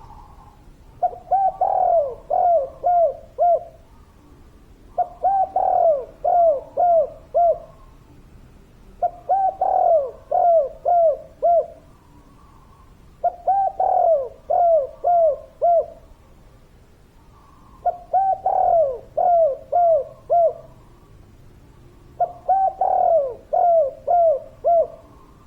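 Spotted dove cooing, repeating the same phrase six times about every four seconds: a soft lead-in note, then a run of about five clipped coos, the first the strongest.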